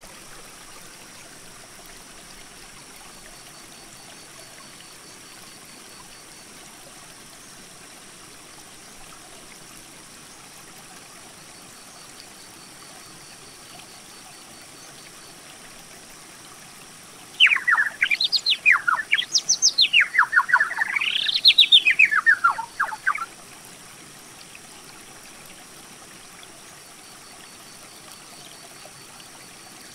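A songbird singing one fast song of rapid notes that sweep up and down in pitch, lasting about six seconds and starting a little past the middle, over a steady faint rushing background.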